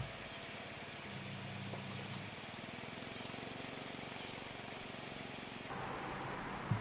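Outdoor background noise with a steady low hum, broken by a brief thump right at the start and another near the end; the background changes shortly before the end.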